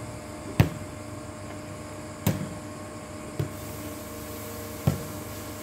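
A ball being struck back and forth over a net: four sharp thuds about one to one and a half seconds apart, over a steady low hum.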